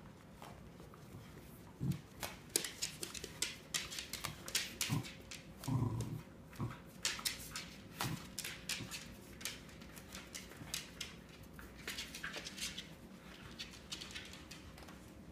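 Two Cardigan Welsh Corgis tugging at a toy between them: quick runs of sharp clicks and scrabbles of claws on a hardwood floor, with a few short low growls. The clicking starts about two seconds in and thins out near the end.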